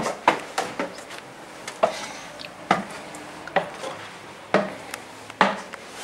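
Footsteps on a wooden floor, about one step a second, with some lighter knocks between them.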